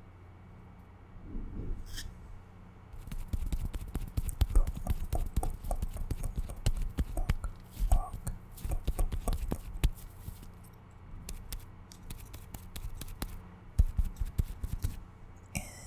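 Close-miked ASMR tapping and handling sounds: a rapid, irregular run of sharp clicks and light taps with low thumps underneath, starting about three seconds in and thinning near the end.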